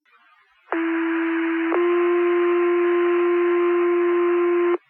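Two-tone sequential paging tones heard through a fire dispatch radio: a steady tone for about a second, then a slightly higher tone held about three seconds, the alert that sets off the firefighters' pagers before a dispatch.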